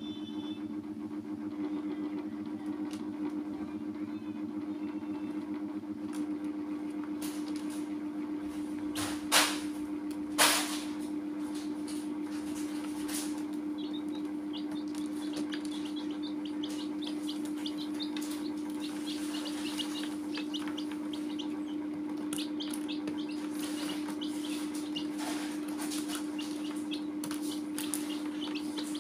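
Baby chicks peeping in short high chirps, coming thick from about halfway through, over a steady low hum. Two sharp knocks a second apart about a third of the way in.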